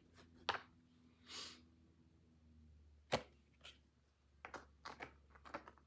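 Faint handling of tarot or oracle cards: a soft swish, a sharp tap about three seconds in, then a run of light clicks.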